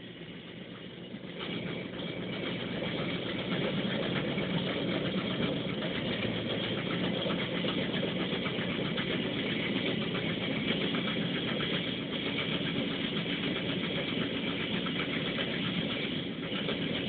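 Zetor 7341 Super Turbo tractor's four-cylinder turbo diesel engine running steadily with a Pronar Z500 round baler hitched. The engine grows louder about a second and a half in, then holds an even drone.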